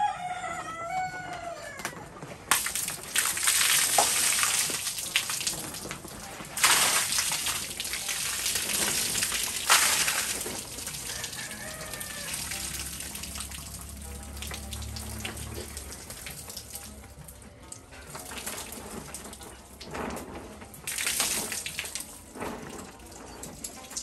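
A rooster crows once at the start with a falling call. Then come several loud bursts of splashing as rainwater is tipped off a sagging tarp roof, with quieter spells between them.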